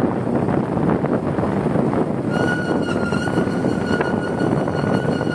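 Wind rushing over the microphone and road noise from a moving motorbike. About two seconds in, a steady high tone joins and holds for about three seconds before stopping.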